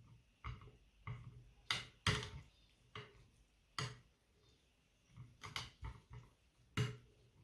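Scattered light clicks and knocks of a kitchen utensil against a plate and food mold, about a dozen in all, the loudest about two seconds in, as food is pressed into the mold.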